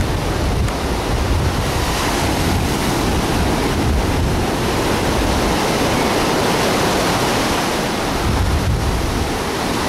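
Ocean surf breaking and rushing as a steady roar of white water, swelling through the middle of the stretch, with wind rumbling on the microphone.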